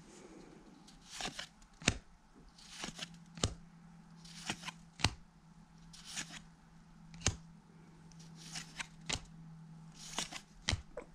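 A stack of cardboard trading cards being flipped through one at a time. Each card slides off with a papery swish and ends in a sharp snap, about one card a second.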